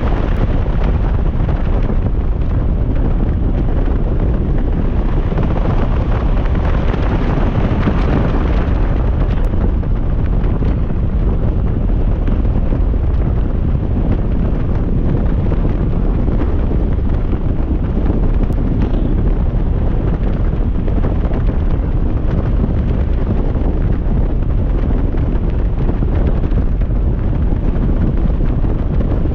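Steady, heavy wind buffeting on the microphone of a motorcycle being ridden at highway speed, with most of the noise at the low end.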